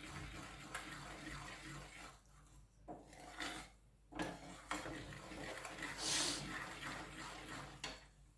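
Metal ladle stirring and scraping against a pan of gram flour (besan) roasting in ghee, irregular strokes with two short pauses and a louder scrape about six seconds in.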